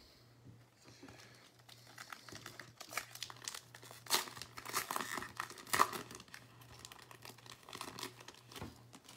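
Foil wrapper of a Panini Chronicles basketball card pack being torn open and crinkled by hand: irregular crackling that picks up about a second in and is loudest around the middle.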